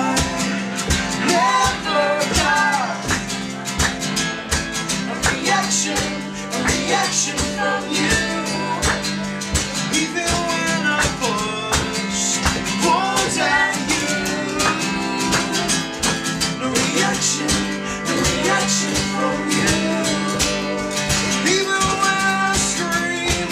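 Acoustic band music: a male voice singing over a strummed acoustic guitar and piano, with a steady rhythmic beat of sharp clicks.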